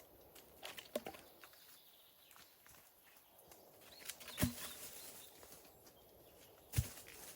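Scattered faint rustling with a few sharp knocks, the loudest about four and a half seconds in and another near the end.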